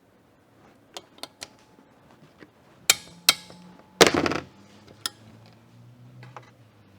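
Metal hand tools clicking and clinking on a cylinder head while the last valve is worked free, then three sharp metal strikes a little past halfway, the last and loudest ringing briefly.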